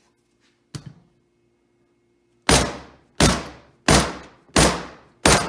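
A rubber mallet strikes the back of a 1926 Ford Model T's differential ring gear to drive it off the differential case. One light tap comes first, then five hard blows in a steady rhythm, about one and a half a second, each with a short ringing tail.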